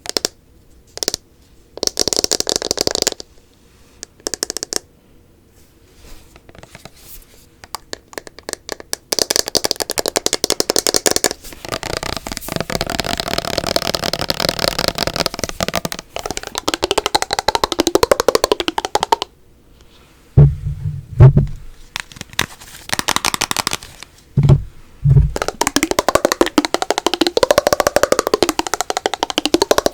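Fast, hard tapping and scratching on assorted objects, in dense rapid runs broken by short pauses. Several short deep thuds come about two-thirds of the way through.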